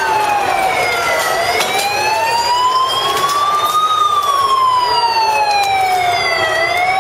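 Police vehicle siren sounding a slow wail, its pitch sliding up and down: low about a second in, high in the middle, low again near the end and starting to rise.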